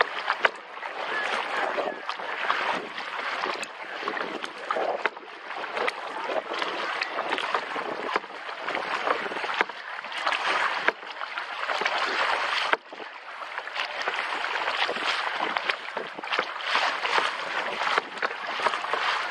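Kayak paddling: water splashing and rushing off the paddle blades in repeated swells, with occasional sharp clicks.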